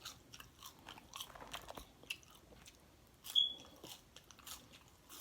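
Close-up chewing and biting of food, with many small wet, crunchy mouth clicks. A brief high squeak about three and a half seconds in is the loudest sound.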